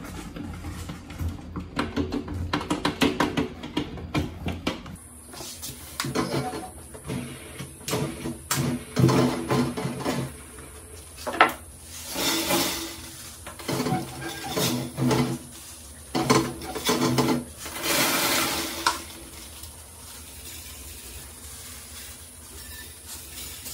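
Dry grain poured from a plastic cup into a glass tank, two rushing pours about six seconds apart, with knocks and clatter of the trap parts being handled in between. In the first few seconds, rats packed in a glass tank scrabble and scratch.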